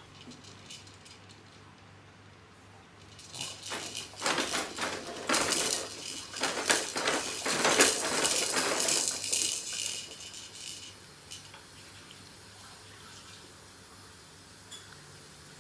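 Plastic toys and frame of a Fisher-Price baby jumper clacking and rattling as a baby bounces in it: a run of quick clatter from about three seconds in, loudest near eight seconds, dying away by about ten seconds.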